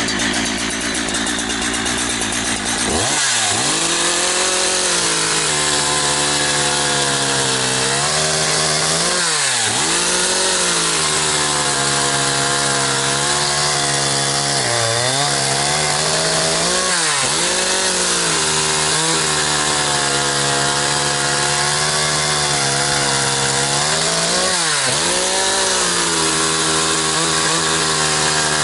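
Holzfforma G372 XP two-stroke chainsaw speeding up sharply about three seconds in and then running at high revs under load, as when cutting wood. Its pitch sags briefly and recovers several times as the chain bites.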